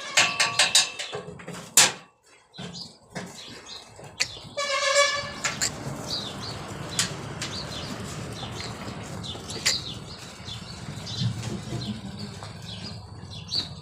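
Goat bleating once about five seconds in, a short wavering call, over scattered knocks and clatter.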